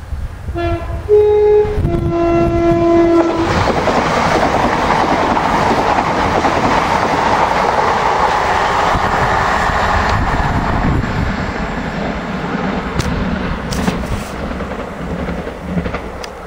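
A Southeastern Class 395 'Javelin' high-speed electric train sounds its two-tone horn three times (low, high, then a longer low note). It then runs past the platform close by, a loud rush of wheel and running noise that builds, holds and slowly eases off.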